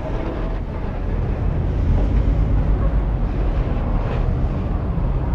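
Steady low rumble of street traffic engines.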